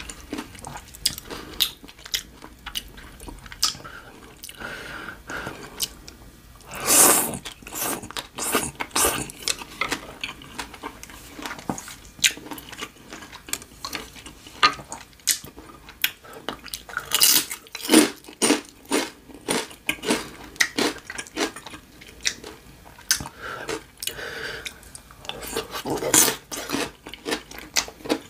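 Close-miked chewing and wet mouth sounds of someone eating: a steady run of short smacks and clicks, with a few louder, longer noisy bursts.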